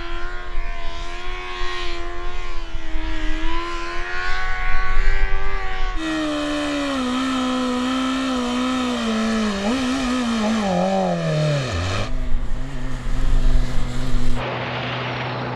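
BMW M1000RR superbike's 999cc inline-four held at high revs with a wavering note during a tyre-warming burnout. After a cut about six seconds in, its revs fall away steadily, and it settles to a low, even note near the end.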